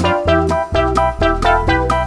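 Background music: a bouncy keyboard tune of quick, short piano-like notes over a steady bass line.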